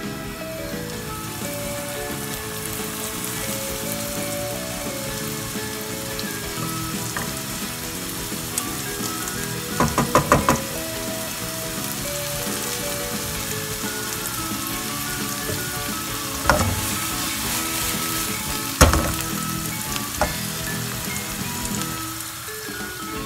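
Chopped onion sizzling steadily as it fries in olive oil in a nonstick frying pan, softening at the start of a refogado. A quick run of knocks comes about ten seconds in, and three single knocks follow later.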